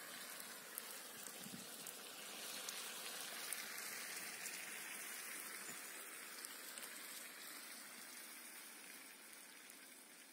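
Wood campfire burning under a grill of cooking food: a steady hiss with scattered faint crackles, swelling slightly a few seconds in and fading toward the end.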